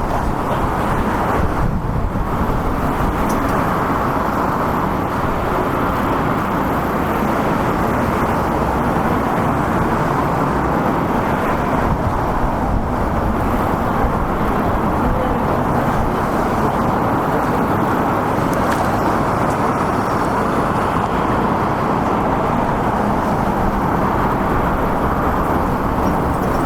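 Steady road traffic noise: a continuous, even rush of passing vehicles on a city street.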